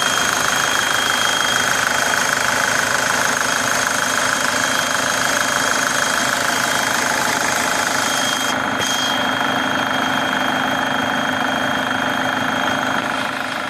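Turbocharged engine idling with a steady high-pitched whistle from the turbocharger riding over the engine noise. The whistle and the upper hiss cut out briefly about nine seconds in.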